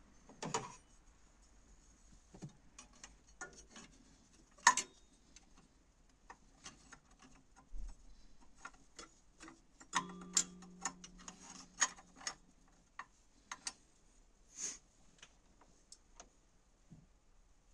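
Scattered, irregular metallic clicks and taps of hand tools and metal parts being handled while the EGR valve on a VW T4 1.9 TD diesel is refitted. The sharpest click comes just under five seconds in, and about ten seconds in a short low hum sits under a quick run of clicks.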